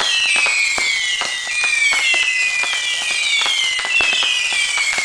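Consumer fireworks whistling and popping: many overlapping shrill whistles, each sliding down in pitch and then holding, with frequent sharp pops and cracks throughout.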